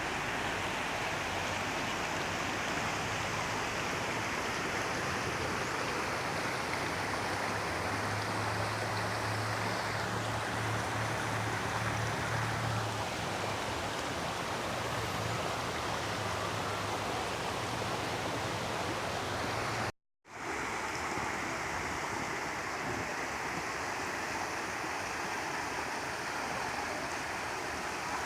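Steady rushing of water over the rocks of a waterfall stream, an even hiss, broken by a short silent gap about twenty seconds in.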